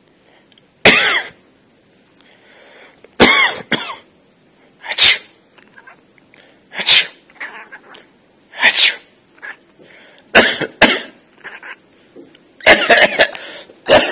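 A chicken sneezing over and over: short, sharp sneezes about every two seconds, with several in quick succession near the end.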